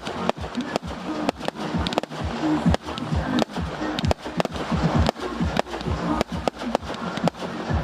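Fireworks going off in quick succession, several sharp bangs and cracks a second, over music playing with the display.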